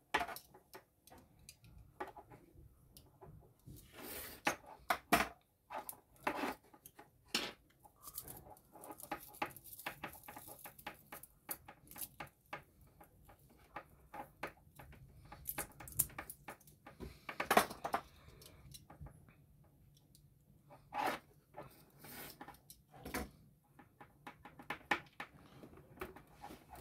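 Irregular small clicks, scrapes and rustles of a utility knife and hands working on a coaxial antenna cable, cutting and stripping its outer jacket, braid and foil.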